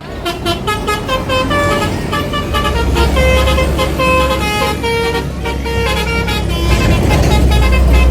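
Multi-tone 'telolet' bus horn playing a quick jingle of stepped notes, over the low drone of a vehicle engine.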